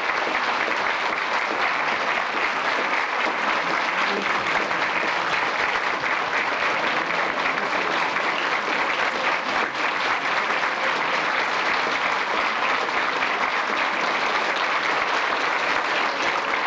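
An audience clapping in steady, sustained applause.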